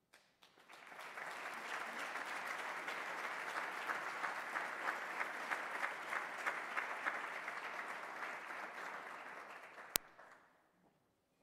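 Audience applauding, swelling up about a second in and dying away near the end. A single sharp click sounds just as the applause fades.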